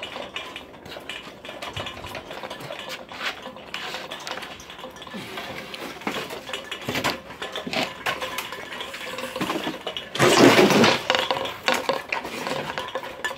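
Irregular clattering and scraping, with many small knocks and one loud burst of harsh scraping about ten seconds in.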